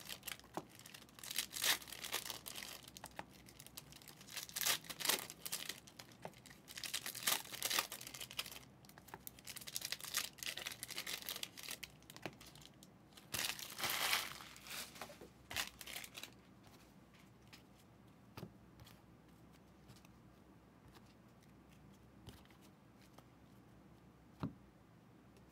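Trading card pack wrappers being torn open and crumpled: a run of ripping and crinkling for about the first sixteen seconds, then quiet apart from one light knock near the end.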